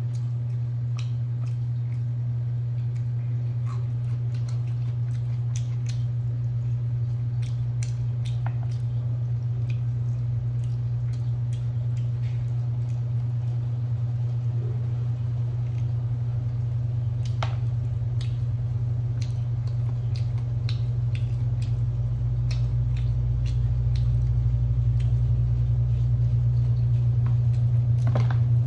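Scattered small clicks and chewing sounds of someone eating cold fried chicken with chopsticks, over a steady low hum that is the loudest sound throughout. The hum grows louder and deeper about three-quarters of the way in.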